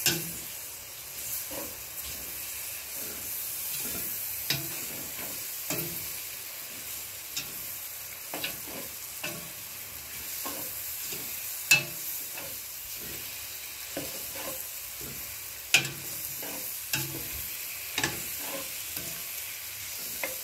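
Boiled tripe frying in oil and masala in a stainless steel pot, with a steady sizzle. A metal spoon stirs it, knocking and scraping against the pot every second or so; a few of the knocks are sharp and louder.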